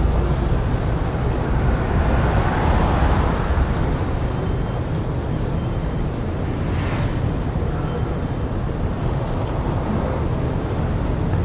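Steady city street traffic: a low rumble of passing vehicles, swelling briefly about two to three seconds in, with a short hiss about seven seconds in.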